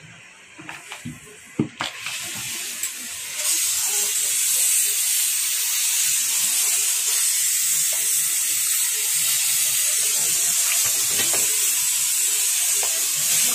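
Liquid poured from a plastic jug through a funnel into the cells of a lead-acid battery, heard as a steady high hiss that sets in suddenly a few seconds in, after a few light clicks and knocks.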